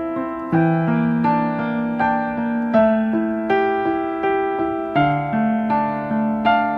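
Background music on an electric piano: sustained chords struck about every three-quarters of a second, each fading slightly before the next.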